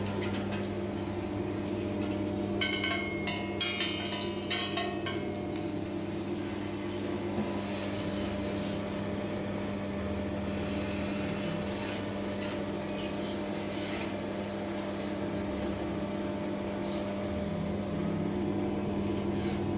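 Motor-driven screw oil expeller running under load with a steady hum, pressing sacha inchi seeds into oil and press cake. A short cluster of metallic clinks comes about three seconds in.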